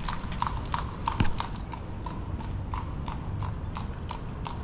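A horse's hooves clip-clopping on a paved street as it pulls a cart, an even run of sharp strikes about four a second, over a steady low rumble.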